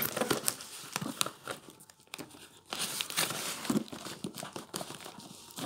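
Small knife blade slitting clear packing tape on a cardboard box: scratchy crinkling and tearing of the tape, with irregular ticks.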